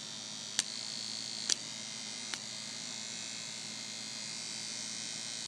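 A steady whirring hum, like a small electric motor running, with three sharp clicks about a second apart in the first half. It cuts off suddenly at the end.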